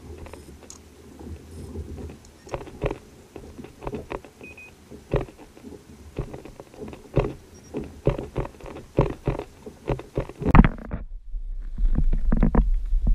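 Irregular light knocks and taps. About ten seconds in, a heavy low rumble comes in and grows loud.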